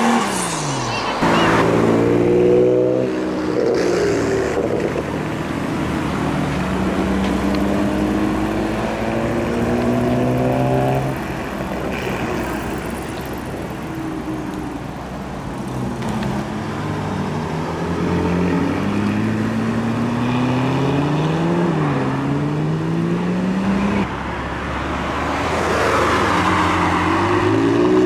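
Sports-car engines accelerating hard away one after another, the revs climbing and dropping back at each upshift. A car sweeps past at the start, falling in pitch.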